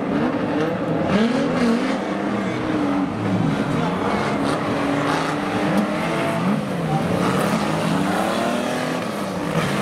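Several speedway stockcar engines running together, revving up and down with their pitches overlapping and crossing.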